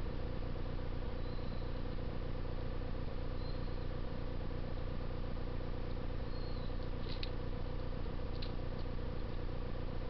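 Eurasian tree sparrows at a feeder: a few faint, short high chirps, then two brief sharp calls near the end. Behind them runs a steady low hum and hiss.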